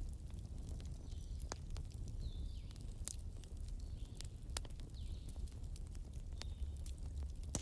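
Wood fire burning in a fireplace: irregular crackles and sharp pops over a steady low rumble, with short high whistling sounds every couple of seconds.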